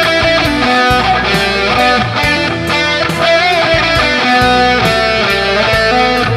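Rock music led by electric guitar over a steady beat, with no singing.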